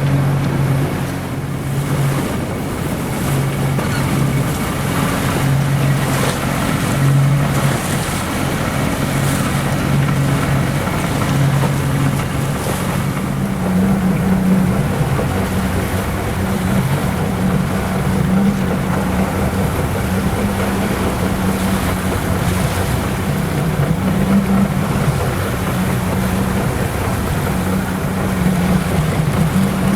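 Small boat's outboard motor running under way, with water rushing past the hull and wind on the microphone. About halfway through, the engine note steps up higher and holds there.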